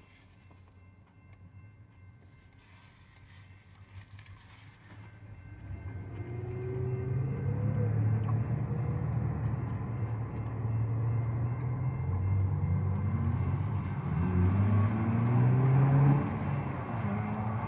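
An engine running nearby, coming up loud about five seconds in, its pitch rising several times, loudest near the end before easing off slightly.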